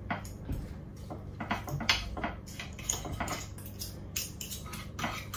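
Cutlery scraping and clicking against a plate as cooked chicken is shredded: irregular light clinks and scrapes throughout, over a steady low hum.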